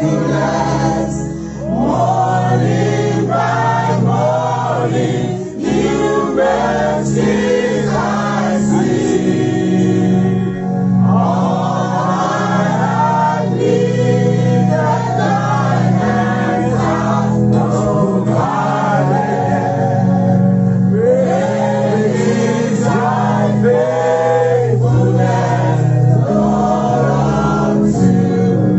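A choir singing a gospel worship song over a steady instrumental backing.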